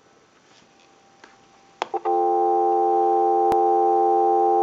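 Telephone dial tone switching on with a click about two seconds in and then holding steady, heard through an amplified pickup from the receiver of a rotary dial Princess telephone; one sharp click partway through the tone.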